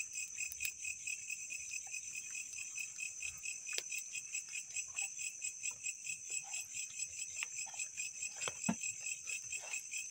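Crickets chirping in a steady, rapid pulsing chorus, with a few faint light clicks.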